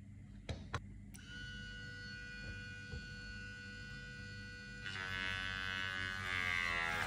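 Two clicks, then a small brushed DC grinder motor starts and runs with a steady whine. About five seconds in it is braked against a roll of tape, and its pitch falls under the load until it cuts off abruptly near the end as the overload-protection relay trips.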